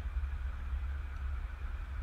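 Steady low hum with a faint hiss: the background room tone of a voice recording.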